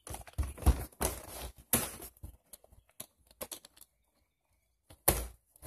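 Knocks and rattles of an RC crawler tank fitted with metal tracks being handled and lifted on a tabletop: a quick run of clicks and clunks in the first couple of seconds, a few scattered ticks, then another loud knock about five seconds in.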